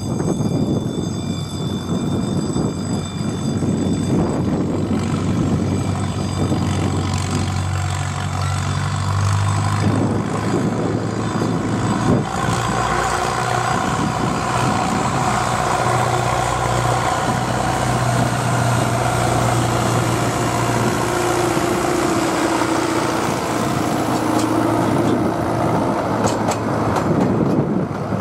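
Alan Keef 4wDH diesel-hydraulic narrow-gauge locomotive working a passenger train, its engine drone growing louder as the train approaches. Near the end the coaches roll past close by on the rails.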